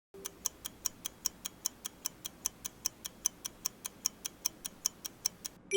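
Countdown-timer sound effect: rapid, even clock-like ticking, about four to five ticks a second, counting down the answer time. It ends in a bell-like ding at the very end, marking time up.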